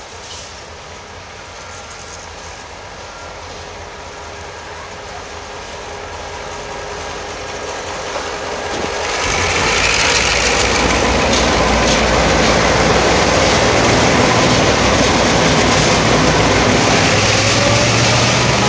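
A slow train drawing nearer, growing gradually louder. About nine seconds in, the sound jumps to the loud, steady running of a freight train's G22UB diesel-electric locomotives passing close by, with wheels on the rails.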